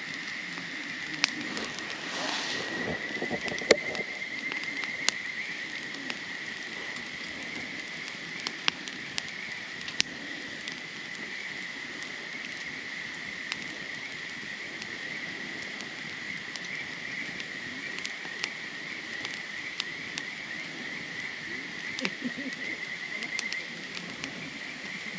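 Campfire crackling: sharp, irregular pops about once a second or less, over a steady high-pitched drone.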